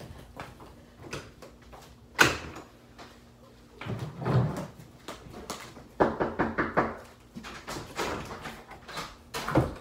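An interior door banging shut about two seconds in, followed by more door thuds and a quick run of knocks or rattles around six seconds in, and another sharp door bang near the end.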